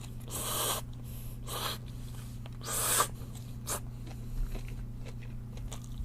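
Close-miked eating sounds of a person chewing a mouthful of stir-fried bean sprouts: four or five short, noisy bursts of chewing and breathing through the nose, the loudest about three seconds in, over a steady low hum.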